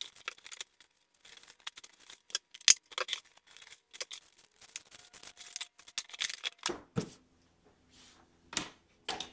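Unpacking a Cisco 6871 desk phone: cardboard and packing paper rustling, with scattered light clicks and knocks of plastic on the box and desk as the phone and handset are set down and the cord is handled. A few sharper knocks stand out, the loudest about three, seven and nine seconds in, and a faint low hum comes in about seven seconds in.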